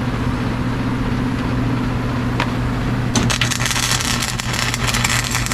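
Welding arc crackling and sputtering, starting about three seconds in, over a steady low hum.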